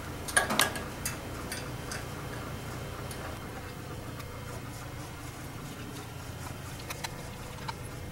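Sharp metal clicks and knocks as bar clamps are fitted and tightened to hold an aluminium fence on a bandsaw's metal table: a cluster of clicks in the first two seconds, then a few more near the end, over a steady low hum.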